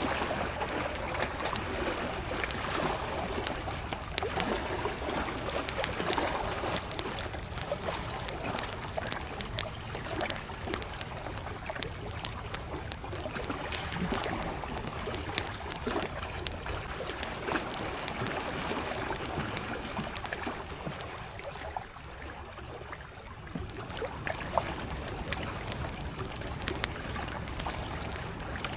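Gentle lake waves lapping at the shore while a wood campfire crackles with frequent sharp pops. The water sound eases briefly about three-quarters of the way through.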